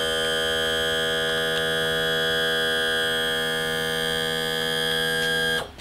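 Mercury outboard's electric power trim/tilt motor running with a steady pitched hum as the outboard is trimmed down to level, cutting off suddenly near the end when the switch is released.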